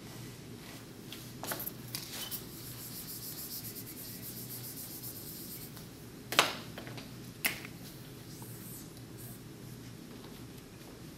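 Whiteboard eraser and marker at work on a whiteboard: faint rubbing and scratching, with a sharp click about six seconds in and a smaller one a second later.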